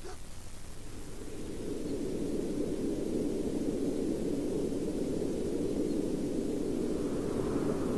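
Steady low rushing noise that swells a little over the first two seconds and then holds level.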